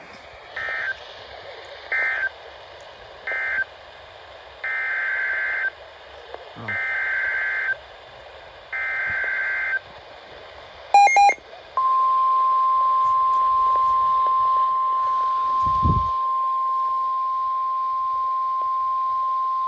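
Weather radio alert tones: three short buzzy data bursts end one warning, three longer data bursts of about a second each (the SAME header of the next warning) follow, and after a brief blip the steady 1050 Hz warning alarm tone starts about 12 s in and holds, over a faint radio hiss.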